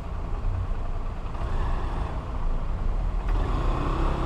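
Single-cylinder four-stroke Honda motorcycle engine running at low speed while crawling between cars, with the idling engines and street noise of stopped traffic around it.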